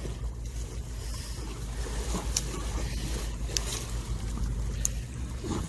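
Wind rumbling on the microphone over the wash of seawater against a concrete breakwater, with a few faint, brief clicks from about two seconds in.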